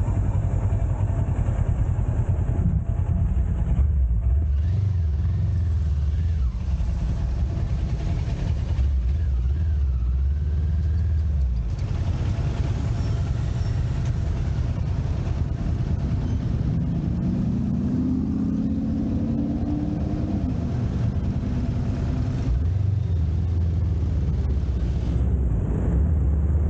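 Motorcycle engine running while riding slowly through town traffic, its note rising for a few seconds past the middle as the bike speeds up.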